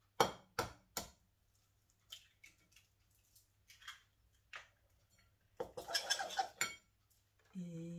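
An egg tapped three times in quick succession against the rim of a glass mixing bowl, then scattered light clicks and a short burst of shell crackling as the egg is broken open over the flour.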